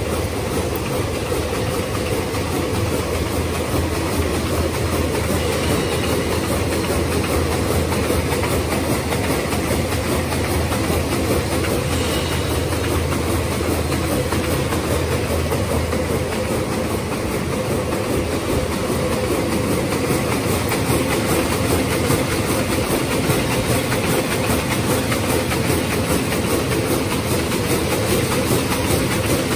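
Twin-lane paper hamburger-box making machine running at speed: a steady, dense mechanical clatter from its feeders, belts and rollers, with a low hum underneath.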